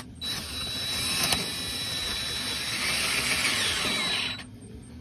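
Cordless drill running a left-hand drill bit into the broken exhaust manifold stud in a Ford 8N's cast-iron cylinder head, a steady whirring grind with a thin high whine and a sharp click about a second in, stopping about four seconds in. The bit grabs and starts tearing at the stud's threads instead of screwing the remnant out.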